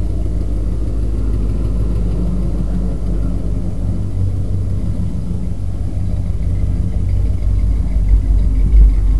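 Chevrolet K10 Blazer mud racer's engine idling with a steady, loud low rumble, with a few louder low thumps near the end.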